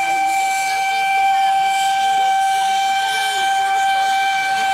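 Steam locomotive whistle blowing one long, steady blast of unchanging pitch.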